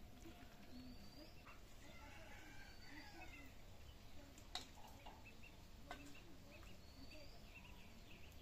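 Faint chirping and short whistled calls of birds in the background, with two sharp clicks of a steel ladle against steel dishes about halfway through.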